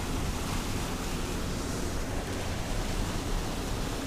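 Steady rush of river water pouring over a small waterfall.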